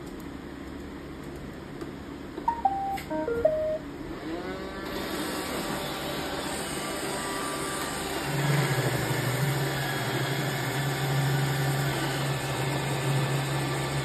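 Roomba robot vacuum starting up: a short tune of electronic beeps about two and a half seconds in, then its motors spin up with a rising whir about four seconds in and run steadily. A louder low hum joins about eight seconds in.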